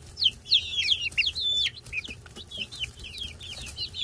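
A group of young chickens peeping: many short, high-pitched, mostly falling cheeps from several birds at once, overlapping in a steady chatter.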